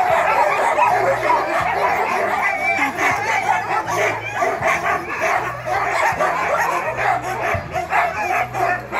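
A yard of harnessed sled dogs barking and yelping over one another without a break, a constant din of many dogs at once. It is the eager clamour of dogs in harness waiting to run.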